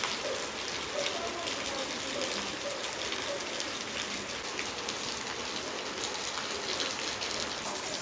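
Steady rain falling: an even hiss with many fine drop ticks.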